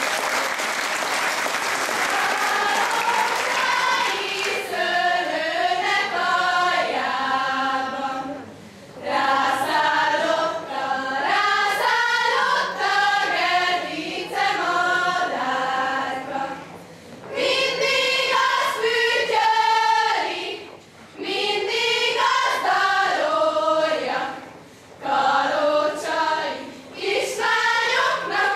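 A group of girls singing a Hungarian folk song together, unaccompanied, in phrases with short breaks between them. Applause fills the first few seconds as the singing begins.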